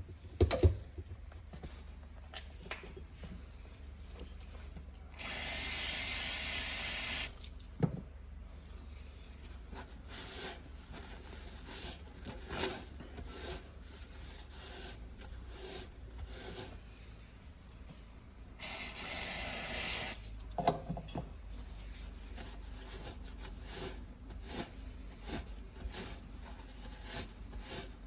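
Two bursts of hissing spray, the first about two seconds long and the second about a second and a half, during tyre-repair preparation inside the tyre. Light knocks and rubbing from the repair work fall between them.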